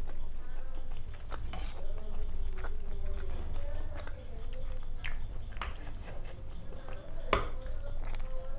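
Close-miked chewing and wet mouth sounds of someone eating mutton biryani. A few sharp clinks cut through, the loudest near the end, as a steel ladle knocks against the curry bowl and plate while curry is served.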